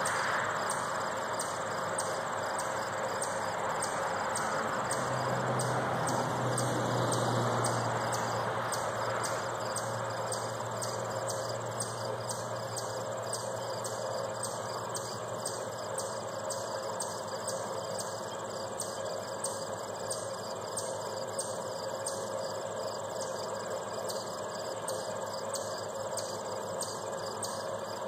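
Insects chirping in a steady, even, high-pitched rhythm. Over the first third a passing vehicle's rushing noise and low engine hum rise over the chirping and fade out.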